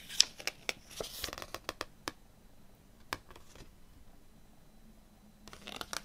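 Paper CD booklet being handled and its pages turned: a run of crisp rustles and small ticks in the first two seconds, one tick about three seconds in, and another short rustle near the end.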